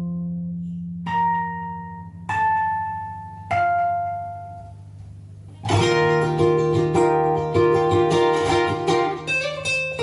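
Background music on a plucked acoustic string instrument: three single notes, each left to ring out, about a second and a quarter apart, then a fuller run of plucked notes from about six seconds in.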